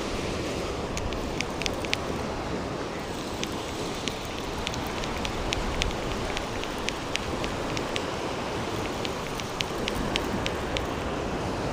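Steady wash of ocean surf and wind, with a scatter of small, sharp, irregular clicks throughout.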